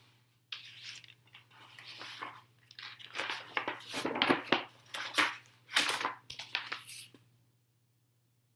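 Large paper pages of a big picture book being handled and turned, with irregular rustling and crinkling that stops about seven seconds in.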